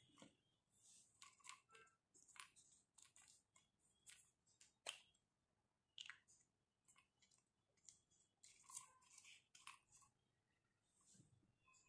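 Faint, irregular clicks and scrapes of small plastic toy parts being handled: a miniature toy blender's plastic jar and base knocking and clicking together.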